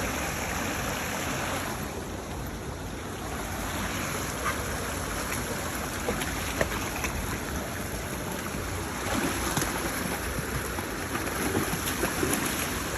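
Stream water running in a steady rushing hiss.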